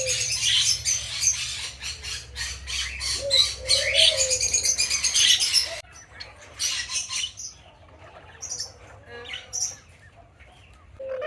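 A flock of lovebirds chattering with dense, rapid high chirps, with a dove cooing low underneath about three and a half seconds in. About six seconds in the chatter drops off suddenly to a few scattered chirps.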